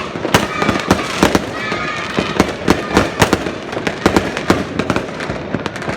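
Fireworks going off in a dense, unbroken barrage: many sharp bangs and crackles overlapping, several a second.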